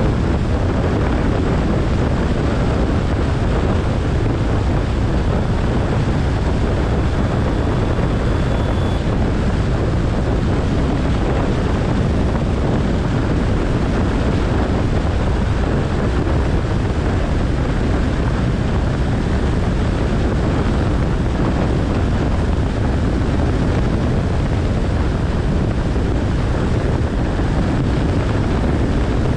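Steady cabin noise of a Cessna 172SP: the engine and propeller drone mixed with a rush of wind, unchanging throughout.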